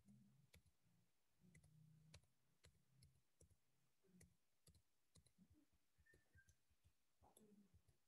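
Near silence broken by faint, irregular clicks of a computer mouse, its buttons and scroll wheel, as pages are scrolled.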